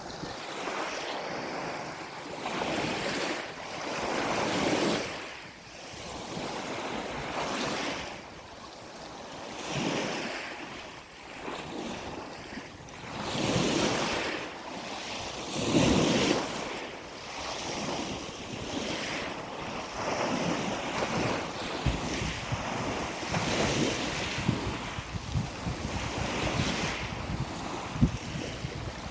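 Sea waves washing in, swelling and fading in surges every few seconds, with some wind on the microphone.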